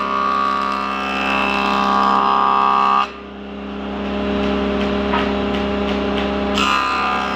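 Wood jointer (surface planer) running with a steady whine and the harsh noise of its cutter head planing a board. The cutting noise cuts off suddenly about three seconds in as the board clears the cutter, leaving the machine running empty, and starts again near the end as the next pass begins.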